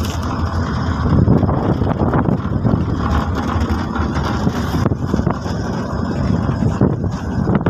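Wind rushing and buffeting over the microphone with the road and engine noise of a moving pickup truck, heard from its open cargo bed.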